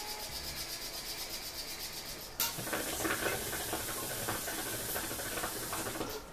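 Hookah water bubbling as air is drawn through the hose: first a light, even, rapid bubbling, then about two and a half seconds in a sudden, louder hissing, gurgling rush that stops about a second before the end. The hissing draw is strong and open, a sound compared to a pressure cooker letting off steam.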